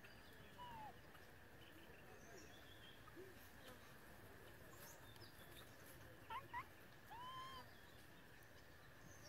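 Faint outdoor ambience with a steady high drone and a few short, high whistled animal calls: one falling call under a second in, two quick calls about six seconds in, and a longer arched call just after them.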